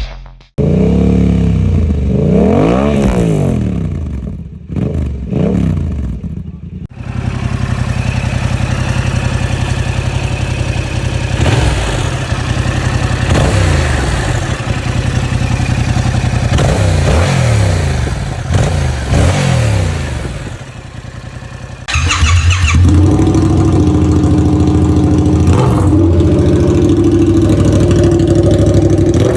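Yamaha R7's 689 cc CP2 parallel-twin engine revving up and down, its pitch rising and falling repeatedly, through the stock exhaust. About three-quarters of the way in it cuts to the same engine through a straight pipe with no dB killer, louder and steadier.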